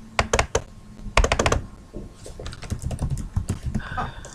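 Quick runs of light clicks and taps, a dense run about a second in and scattered taps after, with the rhythm of typing on a keyboard.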